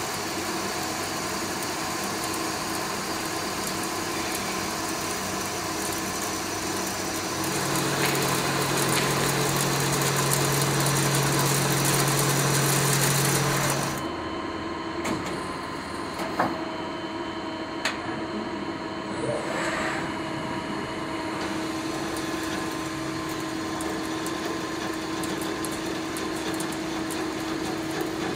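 Knuth Compact 330 CNC inclined-bed lathe turning a metal workpiece: the spindle and a turret-mounted tool take heavy roughing cuts, a steady machining whine with a louder, deeper hum for several seconds in the middle. It then runs quieter, with a few sharp clicks and a steady spindle tone.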